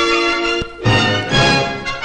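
Instrumental background music: a held chord breaks off briefly, then loud accented chords come in about a second in.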